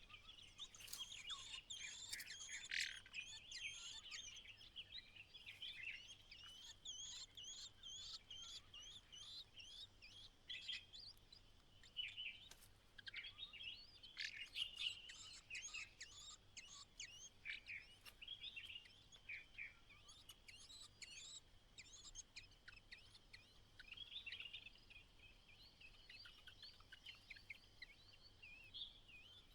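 White-browed laughingthrushes calling: quick runs of short high chirps, thickest near the start and again about halfway through, with quieter chirping between.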